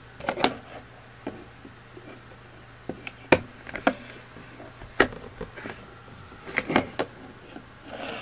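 Hand stapler and paper being handled on a table: a scattered series of sharp clicks and knocks, the loudest about three seconds and five seconds in.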